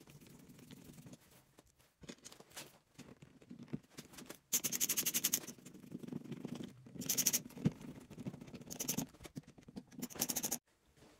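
A cordless power screwdriver drives mounting screws into a metal electrical box in short bursts: a run of about two seconds, then three shorter ones. Between the bursts there is light scraping and handling of the plastic thermostat base.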